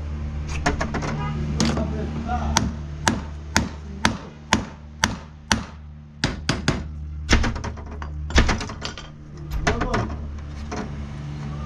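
Hammer blows during repair work: a steady run of about two strikes a second, then a few louder, irregular strikes, over a steady low hum.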